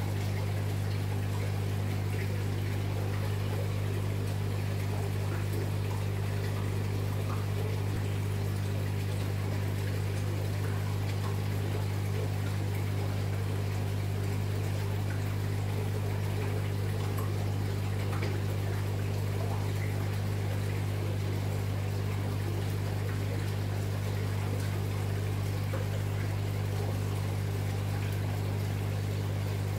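A pump humming steadily at a low pitch, with water trickling faintly over it.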